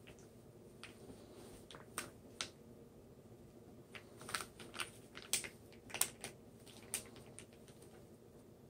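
A zip-top plastic freezer bag of chicken strips in liquid marinade being pressed flat by hand to push the air out, its plastic giving faint, irregular crinkles and clicks that come thickest in the middle of the stretch. Near the end the fingers pinch along the zipper seal.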